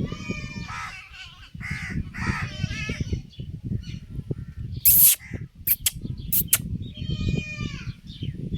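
A few short, harsh animal calls, about four in all, with a loud sharp knock about five seconds in and a couple of clicks after it.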